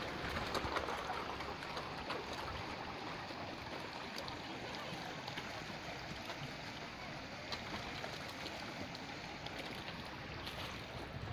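Lakeside ambience: a steady hiss of moving water, with faint scattered clicks.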